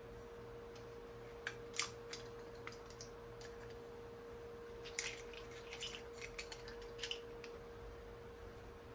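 Metal kitchen tongs clicking and clam shells clinking as braised chicken and shellfish are set onto a serving plate: a few scattered clicks, busiest from about five to seven and a half seconds in. A steady hum runs underneath.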